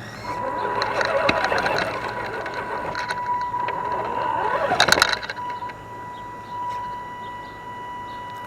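Axial SCX10 DeadBolt RC rock crawler's electric drivetrain whining steadily, heard from the hood-mounted camera, with tyres scrabbling and knocking over rock. It drives louder for about five seconds with several sharp knocks, then eases off to a quieter steady whine.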